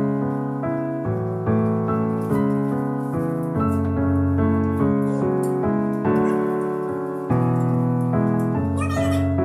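Background piano music: a slow melody of single struck notes that ring and fade.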